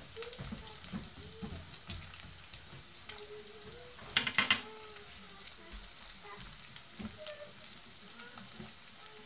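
Gimmari (seaweed-wrapped glass-noodle rolls) sizzling and crackling in shallow oil in a frying pan, with a short cluster of louder sharp clicks about four seconds in.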